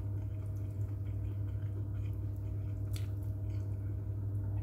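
Chewing, and soft squishing as fingers mix rice and vegetables on a plate, with a few faint clicks, over a steady low hum.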